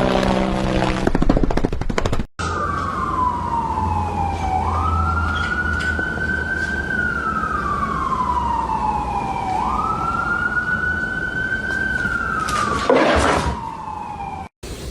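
Emergency vehicle siren wailing: its pitch falls slowly, then sweeps quickly back up, repeating about every five seconds. It is preceded by about two seconds of a different pitched sound, and a brief louder sound cuts across it near the end.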